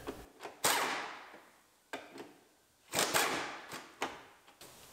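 Cordless impact wrench hammering in two short bursts, about a second in and again about three seconds in, with a few lighter clicks between, as it backs out the door hinge bolts on a truck cab.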